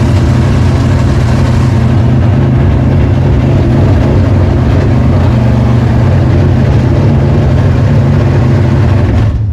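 1972 Dodge Challenger's 440 big-block V8 running steadily and loud, nearly out of fuel, then cutting out abruptly near the end.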